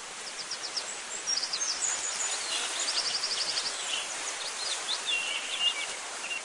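Small birds chirping over a steady background hiss, with quick runs of high, rapid notes, one near the start and a longer one about three seconds in, and lower twittering near the end.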